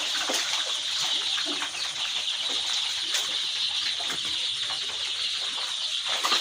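A large flock of 13-day-old chicks peeping together in a dense, steady, high-pitched chorus.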